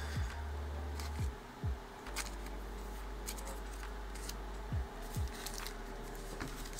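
A few short soft knocks and taps from trading cards being handled on a desk, over a steady low hum.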